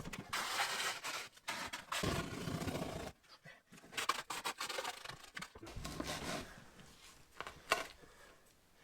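Wet concrete being scraped and worked with a hand tool: irregular scraping, loudest in the first few seconds and fading later, with a sharp knock near the end.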